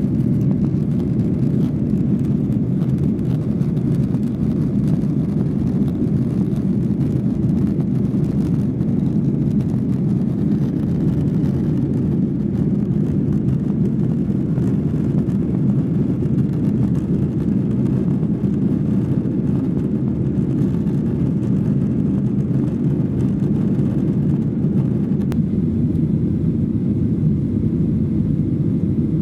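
Steady drone of a Boeing 737-800's CFM56-7B jet engines and airflow heard from a rear seat inside the cabin, during the climb after takeoff.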